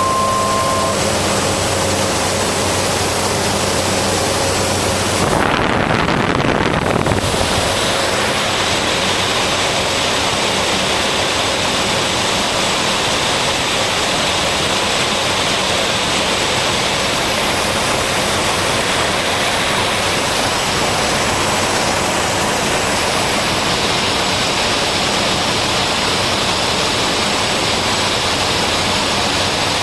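Steady, loud cabin noise in the cockpit of a Cessna Grand Caravan on approach: the single turboprop engine and propeller running under the rush of airflow. A short beep sounds at the very start, and the noise briefly shifts in tone about six seconds in.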